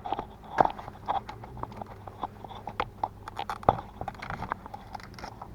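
Irregular clicks, taps and light knocks of hand work on car battery cables: tools and parts being handled under the hood.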